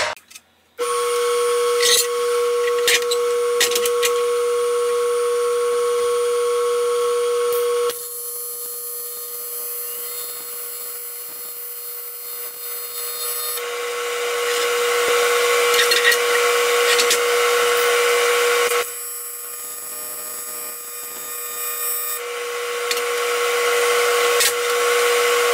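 AC TIG welding arc on aluminum: a steady high-pitched buzz with a hiss over it, starting about a second in. Its loudness steps down and back up a few times, with a few sharp clicks in the first seconds.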